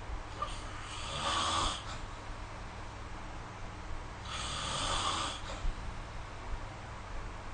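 A sleeping person snoring: two snoring breaths about four seconds apart, the first with a rattling buzz.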